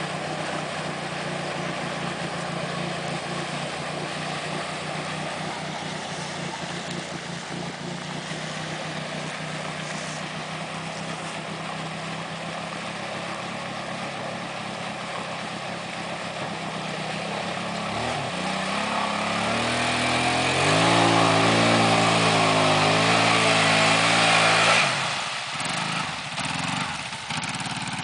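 Vehicle engine running steadily under load while a stuck four-wheeler is towed out of a muddy pond on a strap. About eighteen seconds in it revs up, its pitch climbing in steps, and runs loud and high for a few seconds with a rush of noise on top. It then drops away suddenly and runs unevenly near the end.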